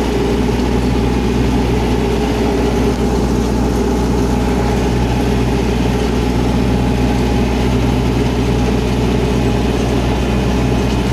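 Belarus MTZ-892.2 tractor's four-cylinder diesel engine running steadily at full throttle, heard from inside the cab. It is working hard pulling a trailed disc harrow through stubble.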